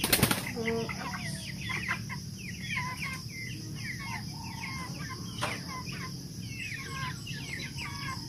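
Broiler chickens peeping and clucking, with many short, falling peeps overlapping one another. There is a sharp knock at the very start and a lighter one about five seconds in, over a steady high-pitched drone.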